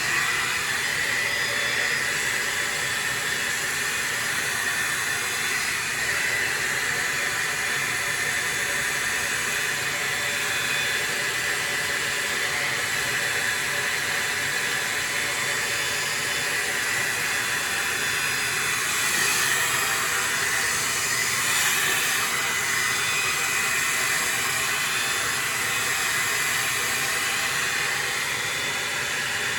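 Farery hot air brush (blow dryer brush) running steadily, its fan blowing with a constant airy hiss and a faint high whine, swelling slightly about two-thirds of the way through.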